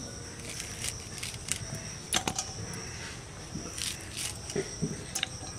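Scattered light clicks and crisp snips as banana-flower florets are cut by hand against the edge of a boti, a fixed curved blade.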